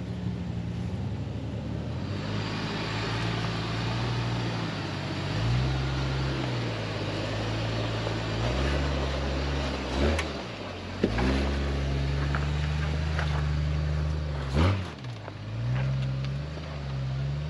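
Off-road 4x4's engine running, its pitch rising and falling with the throttle, with a few sharp knocks about ten, eleven and fifteen seconds in.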